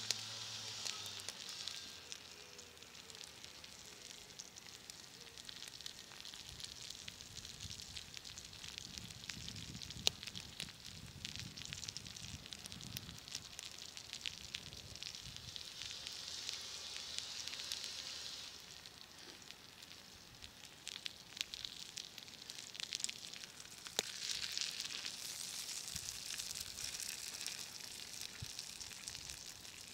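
Meat, potatoes and eggs sizzling in a frying pan over a wood fire, a steady hiss that swells and eases, with scattered sharp pops.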